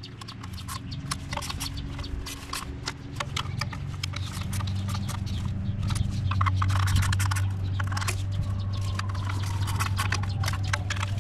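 A 1/4-inch ratchet clicking in quick, uneven runs as oil pan bolts are snugged down by hand one after another. A steady low hum behind it grows louder about halfway through.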